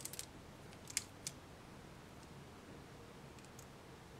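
A few faint clicks of plastic bead bracelets being handled in the first second or so, then near silence: room tone.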